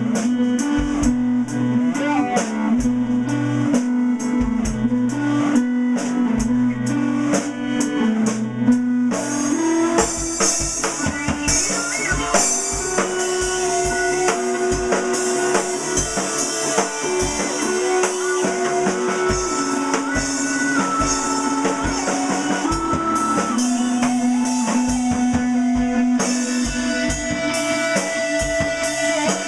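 Rock music played on guitars and a drum kit. Light steady ticking at first, then the cymbals come in fuller about ten seconds in.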